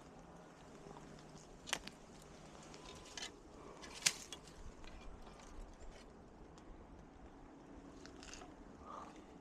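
A few sharp clicks and scattered faint ticks and rustles over a quiet background.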